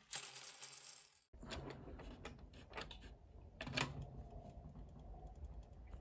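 Plastic Connect Four discs clattering as they drop out of the bottom of the grid onto a table, then a run of small clicks and clacks as the discs are picked up and handled, with a couple of louder clacks in the middle.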